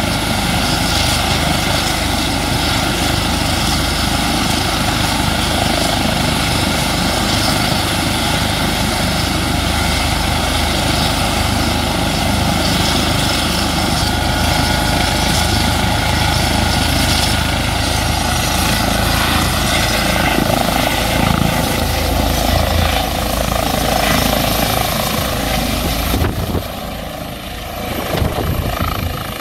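Eurocopter EC135 police helicopter running on the ground, with a steady turbine whine and rotor noise from its twin engines, main rotor and fenestron tail rotor, then lifting off into a hover near the end. The sound dips briefly in level shortly before the end.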